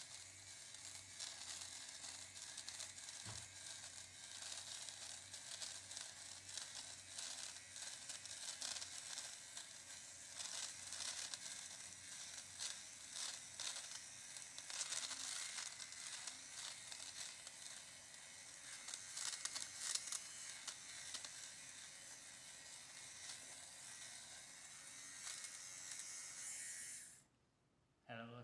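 Handheld electric lint remover (fabric shaver) running over fleece sweatpants, its spinning blades shearing off pills with a steady scratchy buzz that stops near the end.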